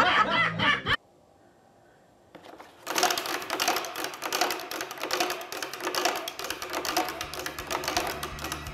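Home-made wooden prize wheel spinning, its pointer clicking rapidly against the pegs, a dense run of ticks that starts about three seconds in after a brief near-silent gap.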